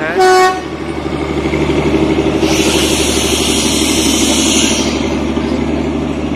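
Darjeeling Himalayan Railway toy train moving off: a short toot from the locomotive at the start, then the steady rumble of the coaches rolling past. A hiss lasts about two seconds in the middle.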